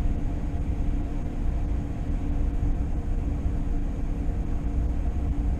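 Steady road and engine rumble inside a moving car's cabin, with a faint steady hum over it.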